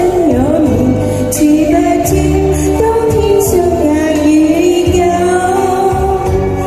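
A woman singing into a microphone over accompanying music with a steady bass beat and percussion.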